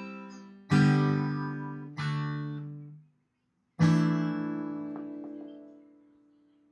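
Acoustic guitar playing the closing chords of a song: three strummed chords, a short pause, and the last chord left to ring and fade away.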